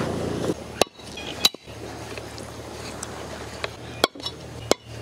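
A knife chopping on a wooden cutting board as mutton and vegetables are cut up: a handful of sharp, separate chops at uneven intervals.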